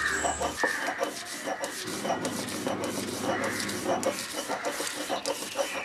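Stone roller rubbing back and forth on an ammikkallu, a flat grinding stone, grinding coconut with turmeric and chili powder into a wet curry paste: a gritty scraping in repeated strokes.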